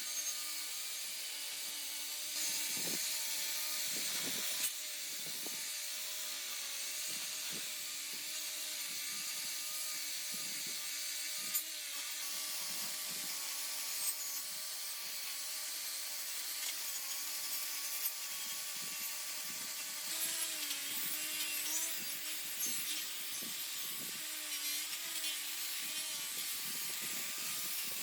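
A small electric power tool running steadily, its motor giving an even hum under a high rasping noise of abrasive or cutting work on a part.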